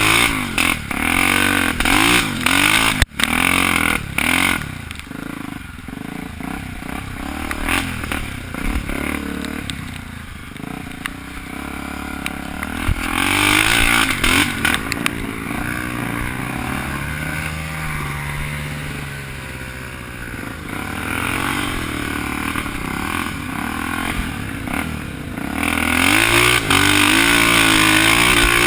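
Off-road motorcycle engine running while the bike is ridden on a muddy trail, its pitch rising and falling with the throttle. There is one sharp knock about three seconds in. The engine is quieter through the middle and louder again near the end.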